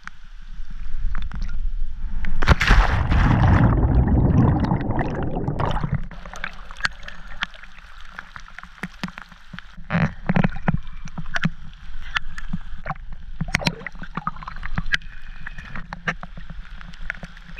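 A jumper plunging into lake water: a loud rushing splash starts about two and a half seconds in and lasts a few seconds, followed by water sloshing and gurgling with scattered small splashes and knocks as she swims.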